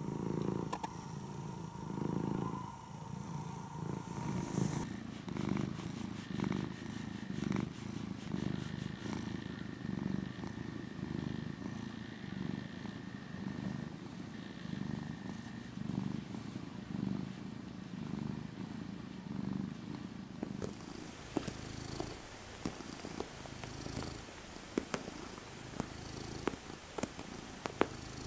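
Domestic cats purring right at the microphone, a low rumble that swells and eases with each breath. The purr changes character twice as a different cat takes over, and in the last several seconds a fainter purr is joined by light clicks.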